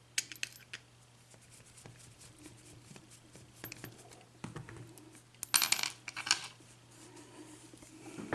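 Small metallic clicks and clinks from a picked-open Assa euro cylinder lock and metal tools being handled during disassembly, with a few quick clicks just after the start and a louder run of bright clinking about five and a half seconds in.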